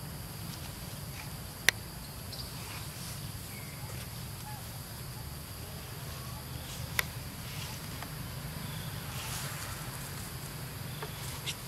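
Steady insect drone with a low hum underneath, broken by two sharp clicks, one about two seconds in and one about seven seconds in, and a few faint short chirps.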